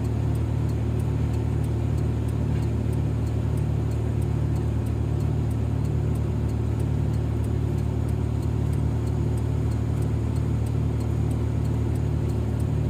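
An engine running steadily at a constant speed, a continuous low hum with no revving or change.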